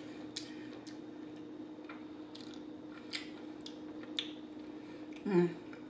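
Close-miked chewing of fries with sauce: soft wet mouth clicks and smacks about once a second. A short hum falling in pitch comes about five seconds in.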